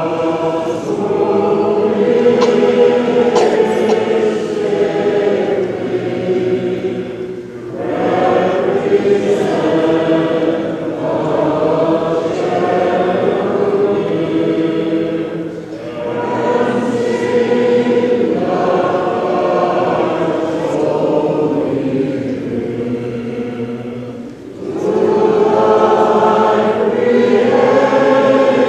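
Many voices singing Byzantine Catholic liturgical chant together, unaccompanied, in long phrases broken by short pauses about every eight seconds.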